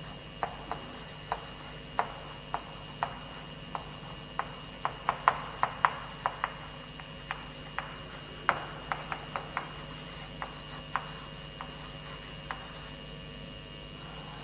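Chalk tapping and clicking on a chalkboard as words are written out: a run of irregular sharp taps, thickest in the middle and thinning out after about ten seconds, over a steady low hum.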